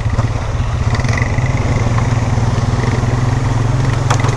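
Polaris Sportsman 570 ATV's single-cylinder engine running steadily while being ridden, with a brief click near the end.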